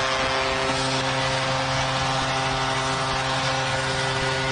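Ice hockey arena goal horn sounding a steady, sustained chord over a cheering crowd, right after a goal is scored.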